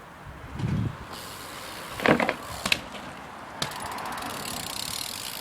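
A BMX bike being handled: a dull knock, then a few sharp clicks and rattles about two seconds in, followed by a steady hiss.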